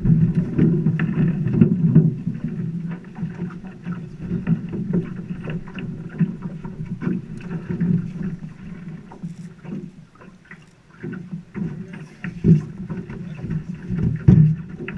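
River water lapping and slapping against the side of a boat, with irregular knocks on the hull, swelling and easing and quietest about ten seconds in.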